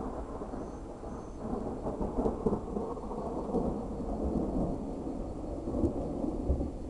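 Thunder rumbling and crackling in a long peal, swelling about two seconds in and staying loud with several sharper cracks.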